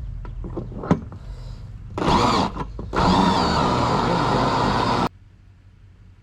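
Small electric motor whirring in a short burst, then running steadily for about two seconds before cutting off suddenly. Light knocks come before it.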